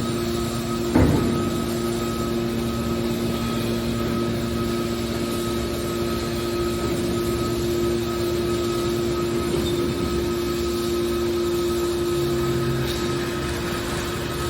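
Hydraulic scrap baler running with a steady hum from its motor and pump, and a single knock about a second in.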